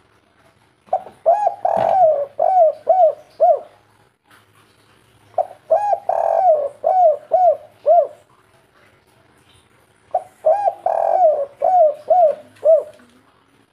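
Spotted dove (tekukur/derkuku) of the 'kuk 3' song type cooing: three repeated phrases, each a few short coos, a longer drawn-out coo, then a run of short falling coos.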